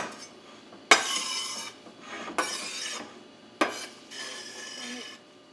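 Chef's knife scraping chopped kale across a cutting board into a soup pot: three rasping strokes, each starting with a sharp knock.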